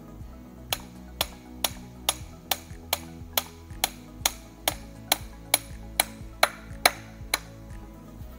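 Ball-peen hammer gently tapping the steel center gear pin into a Dana 300 transfer case, a run of about sixteen even metal taps, roughly two a second. Background music plays underneath.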